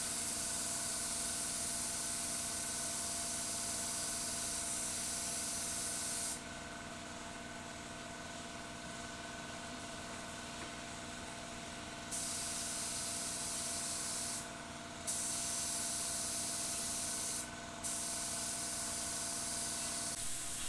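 Compressed-air paint spray gun hissing as it sprays primer, released about six seconds in and quiet for some six seconds, then spraying again with two short breaks near the end. A steady hum runs underneath.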